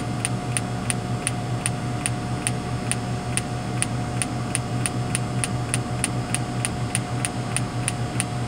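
Lattice-boom crane's engine running steadily with a low hum, under a regular sharp clicking about three times a second.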